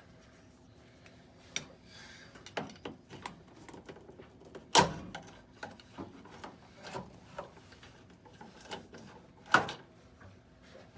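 Scattered clicks and knocks of washer parts being handled during a drain pump removal, with two sharp louder knocks, about five seconds in and near the end, over a faint steady hum.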